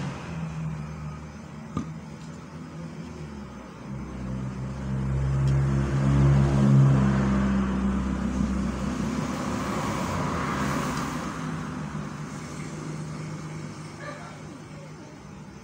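Road traffic: a motor vehicle's engine hum swells about a third of the way in and fades, followed by a second rush of passing-vehicle noise a little later.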